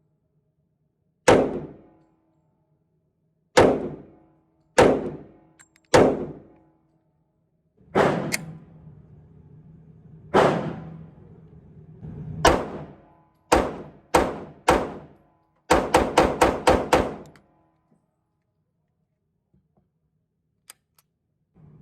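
Gunshots: single shots a second or two apart, then a fast string of about seven shots in under two seconds, after which the firing stops for the last few seconds.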